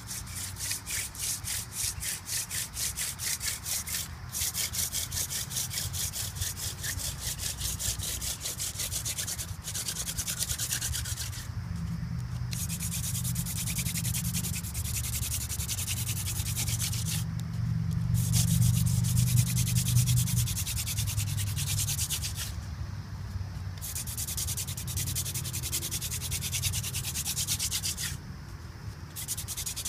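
Hand drill friction fire: a wooden spindle spun rapidly back and forth between the palms, its tip grinding on a wooden hearth board. The grinding comes in runs of several seconds broken by five short pauses, and is loudest about two-thirds of the way through.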